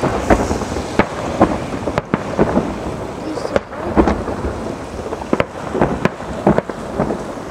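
Aerial firework shells bursting in quick succession: irregular bangs, several a second, over a continuous rumble and crackle.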